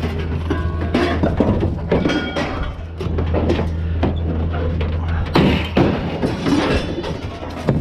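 Pickup truck driving, a steady low engine and road drone with frequent knocks and rattles.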